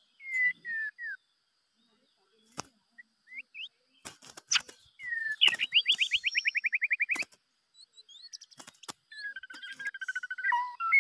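White-rumped shama singing: short clear whistled notes that slide down in pitch, a fast trill of about a dozen notes a second around the middle, and a longer whistled phrase near the end, with sharp clicks in between.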